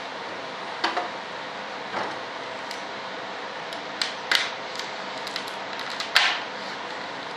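Cured fiberglass-and-resin duct cracking and popping as it is worked off its mold, releasing from the surface. There are sharp cracks about a second in and two near four seconds, and the loudest comes just after six seconds, over a steady hiss.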